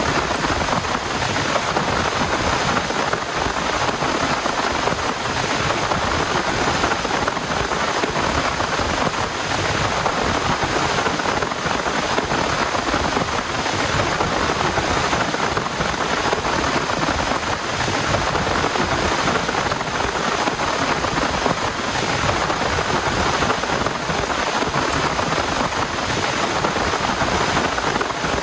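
Heavy rain falling steadily: a dense, even hiss of rain with no single strikes standing out.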